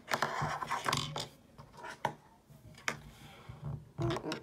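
Plastic Lego pieces and minifigures being handled: rubbing and shuffling, then a few separate sharp clicks.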